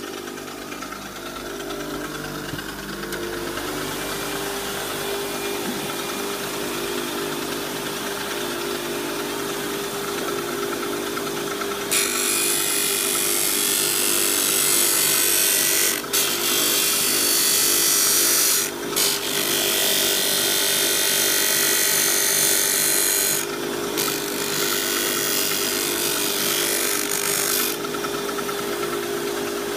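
Homemade disc sander, driven by a salvaged table-saw motor, running steadily with a shop vac going. From about twelve seconds in, a workpiece is pressed against the spinning sanding disc in four passes, a loud rasping grind with short breaks between them, and the grinding stops a couple of seconds before the end.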